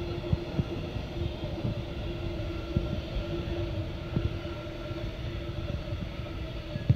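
Empty container flat wagons of a freight train rolling past, with a steady wheel-and-rail rumble, irregular clanks and a steady humming tone.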